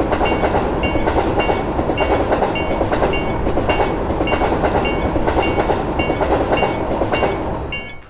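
A train passing over a level crossing with a dense rumble and wheel clatter, while the crossing's warning bell rings steadily about twice a second. The train noise fades away near the end.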